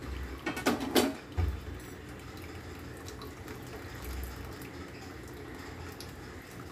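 A thin stream of melted agar (china grass) liquid trickling through a mesh strainer into a steel pan of pudding mixture, with a few short knocks and clinks in the first second and a half.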